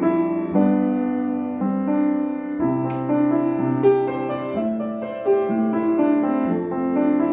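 Piano music: sustained chords and melody notes changing every half second or so, with a brief click about three seconds in.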